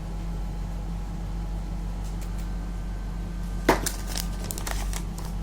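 Canon LiDE 120 flatbed scanner's carriage stepper motor running with a steady low hum while its misaligned scan carriage jerks back and forth without feeding properly. One sharp click sounds about two-thirds of the way through, followed by a few fainter clicks.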